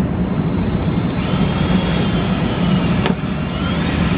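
Cordless drill running with a steady high whine as it bores the centre hole through a paper template into the boat's hull, stopping just at the end with a click. A steady low hum runs underneath.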